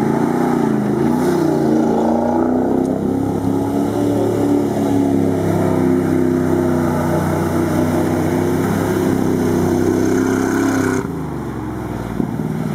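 Chevrolet K5 Blazer's V8 engine pulling through a shallow river crossing under steady throttle, its revs wavering at first and then held, with water splashing around the tyres. About eleven seconds in it gives way abruptly to a quieter engine idling.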